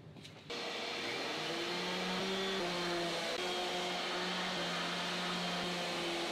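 Makita random orbital sander running steadily as it sands a glued-up birch laminated board, hooked to a dust-extraction hose. It starts abruptly about half a second in.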